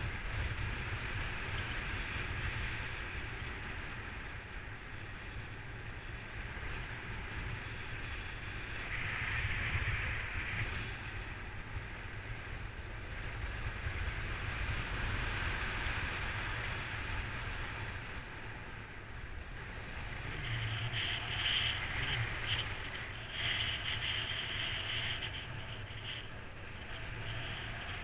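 Wind rushing over the camera microphone during paraglider flight: a steady low rumble with a hiss that swells and fades, brighter in patches in the second half.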